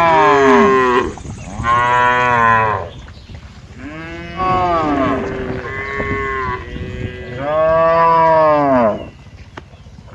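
Cattle mooing: a run of about four loud, drawn-out moos with short pauses between, each rising and then falling in pitch, one already under way at the start.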